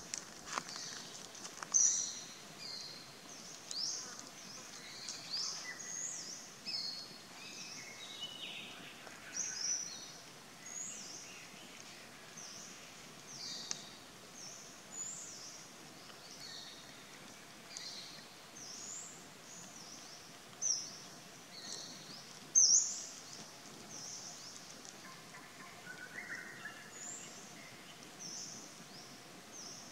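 Birds chirping in a forest: many short, high chirps and whistles over a faint steady hiss, one or two a second, with a sharper, louder chirp a couple of seconds in and another about three quarters of the way through.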